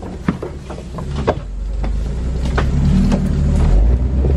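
Jeep YJ engine running at low speed while crawling a trail, growing louder from about two seconds in. Branches scrape and snap against the body and mirror, giving several sharp clicks early on.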